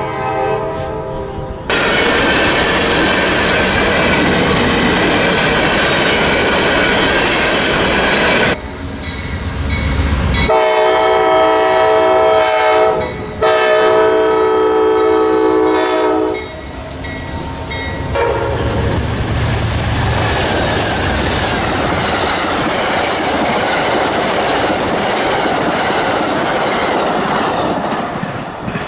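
Locomotive air horn sounding in long blasts, two of them close together near the middle, followed by a train rolling past with its wheels clattering over the rail joints.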